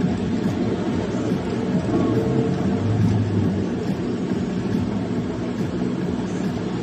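Steady vehicle noise heard from inside a car's cabin: a car engine idling with the low hum of surrounding traffic.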